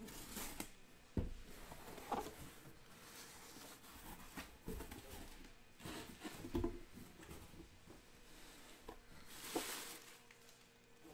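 Hands handling a cardboard shoe box: a few soft knocks and scrapes of the box and lid, and near the end a brief rustle of tissue paper inside.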